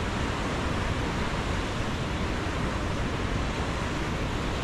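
Steady rushing of a fast-flowing canyon river.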